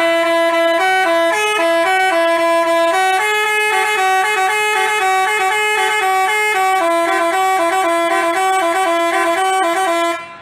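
Basuri telolet multi-tone horn playing a tune: loud, steady horn notes stepping up and down in a quick melody, with two tones sounding together, cutting off suddenly near the end.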